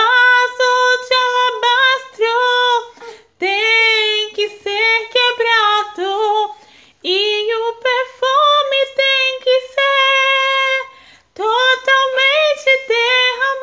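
A woman singing a Portuguese-language worship song unaccompanied, holding long notes and sliding between them, with short breaks for breath between phrases.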